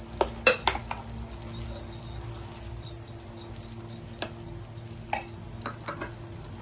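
A metal spoon clinking and scraping against a pan while a thick cooked daliya (broken wheat) mixture with jaggery and dry fruits is stirred: three sharp clinks close together near the start, then scattered single clinks later on.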